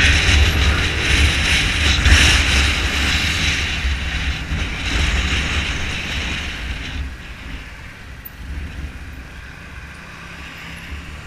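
Wind rushing over a helmet-mounted camera's microphone on a moving scooter, with a low rumble underneath; the rush fades about seven seconds in.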